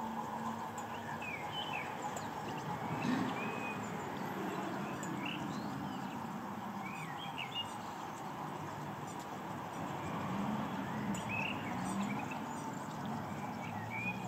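Small birds chirping, short calls here and there, over a steady low rumble.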